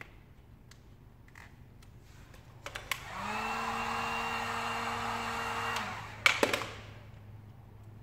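Electric heat gun blowing hot air onto vinyl wrap film on a car door handle. It is switched on about three seconds in, runs steadily with a fan whine for about three seconds, and winds down. A few clicks come just before it starts, and a sharp click or knock, the loudest moment, follows shortly after it stops.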